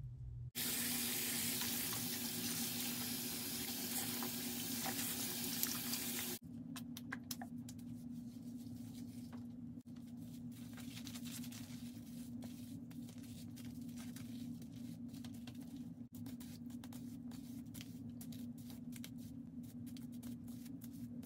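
Bathroom sink tap running for about six seconds, then shut off. After that come soft wet squelches and small clicks as a doll's long hair is lathered with liquid hand soap and combed, over a steady low hum.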